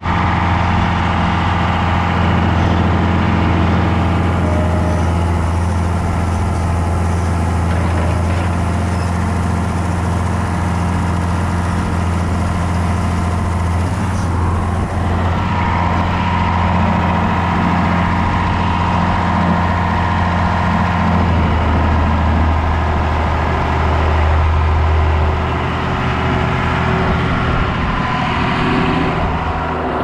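John Deere 7610 tractor's six-cylinder turbo diesel engine running steadily, its note changing about halfway through and again about two-thirds of the way through.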